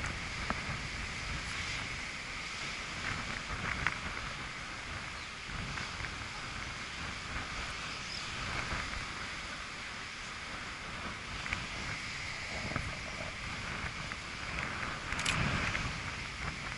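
Wind on the microphone over the steady rumble of ocean surf, swelling louder about fifteen seconds in.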